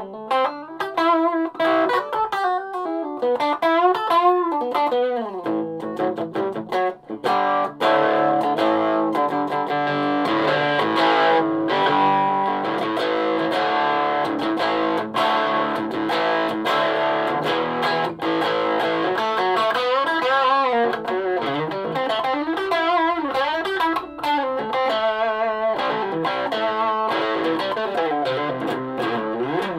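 Electric guitar played through a Donner 5-watt mini practice amp with distortion on. It opens with bent, wavering lead notes, moves about six seconds in to dense chordal riffing, and returns to wide string bends and vibrato in the last third.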